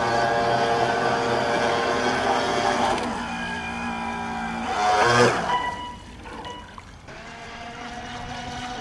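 Radio-controlled model boat motor running on the water, changing pitch about three seconds in. About five seconds in it swells loudly and its pitch drops as the boat passes close, then it carries on more quietly.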